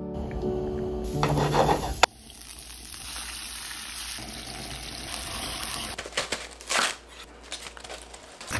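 Minced garlic sizzling in hot oil in a frying pan: an even, steady hiss for about four seconds. Then a few crisp crunches as leaves are snapped off a head of romaine lettuce.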